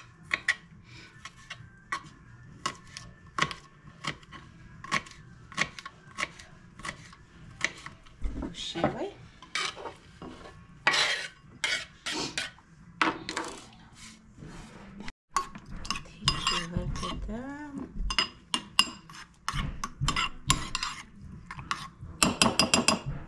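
Kitchen knife chopping garlic on a wooden cutting board in steady, even knocks a little faster than one a second. Then the knife scrapes the chopped greens off the board into a ceramic bowl, and a spoon stirs yogurt in the bowl, clinking against its side, with a quick run of clinks near the end.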